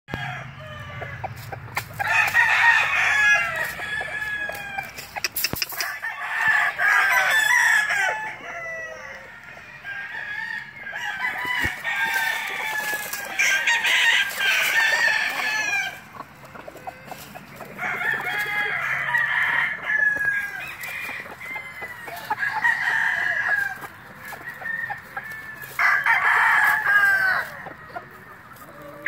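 Chickens calling: loud crows of a second or two come every few seconds, some of them overlapping, with clucking between.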